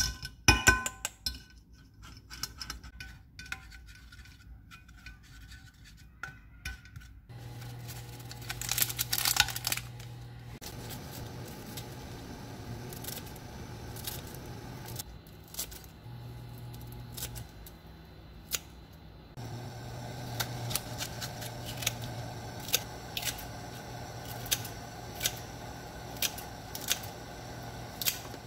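Kitchen scissors snipping napa cabbage into a pot of cabbage doenjang soup: a run of sharp snips in the second half, over the bubbling of the pot. Near the start, a wooden spoon and a metal mesh strainer clink against the pot as soybean paste is pressed through.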